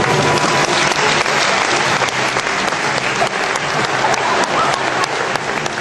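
Audience applauding, a steady, dense clapping throughout.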